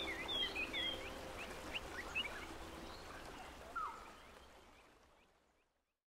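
Wild birds calling in a riverside chorus of many short chirps and whistles, with one lower call sliding downward a little before the sound fades out, about four seconds in.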